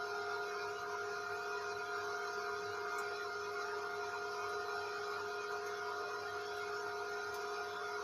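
Small DC water pump and the Lenovo CPU-cooler fan of a Peltier cooler running together: a steady electric motor hum with a few clear fixed tones.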